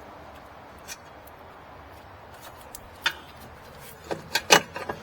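Sharp metal clicks and knocks from the front suspension parts being handled: one about a second in, one about three seconds in, then a quick cluster of louder knocks near the end as the hub and steering knuckle are worked back onto the lower ball joint.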